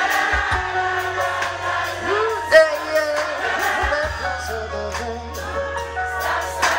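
Live zouk-jazz band with a woman singing over keyboard, drum kit and guitar, under a steady low bass line.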